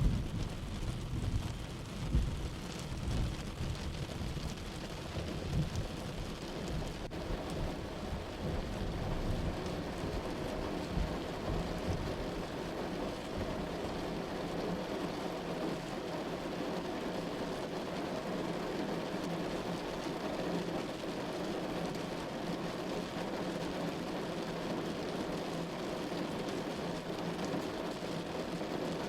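Steady heavy rain falling, with a low rolling rumble of thunder that fades out over the first twelve seconds or so, leaving only the rain.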